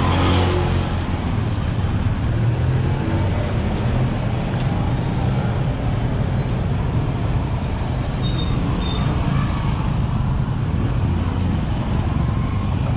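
Slow-moving street traffic of cars and small motorcycles, engines running close by with a steady low hum.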